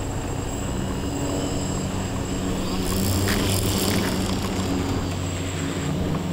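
Scratch-built electric quadcopter's motors and propellers humming steadily in fast, low flight. About three seconds in, a louder rushing hiss swells for about a second as it swoops.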